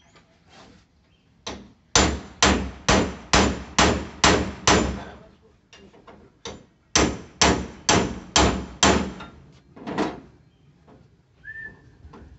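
Hammer blows on a metal lid frame: a run of about seven strikes, two a second, then after a short pause another run of about five, with a few lighter, scattered hits.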